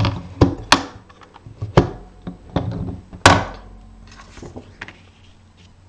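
Sharp plastic knocks and clacks as a Stampin' Up! Stamparatus stamp-positioning tool is picked up and handled on the table. About half a dozen separate hits come in the first three and a half seconds, the loudest just after three seconds, then lighter handling noise.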